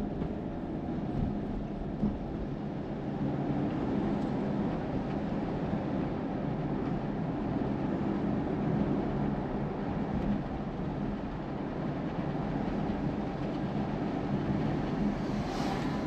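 Car driving, heard from inside the cabin: a steady engine and road drone with a low hum, and a brief hiss near the end.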